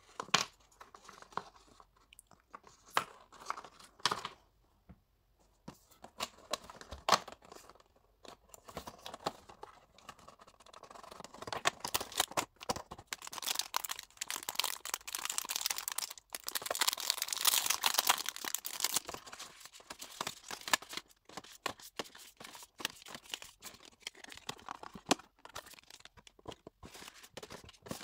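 Paper and cardboard being handled: rustling and crinkling with small clicks and taps, turning into a denser, louder run of rustling about halfway through.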